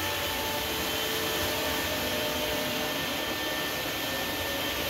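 X-Scrub Pro electric floor scrubber running, its vacuum motor and spinning scrub brushes making a steady whir with a faint high whine on top.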